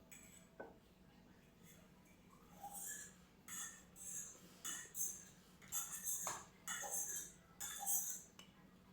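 Crunchy chewing of fresh salad close to the microphone: a run of about eight crisp crunches, one or two a second, starting about two and a half seconds in.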